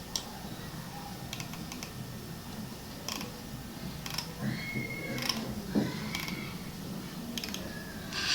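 Scattered computer clicks and key taps, a few at a time with gaps between, over a low steady hum, with two faint short squeaks around the middle.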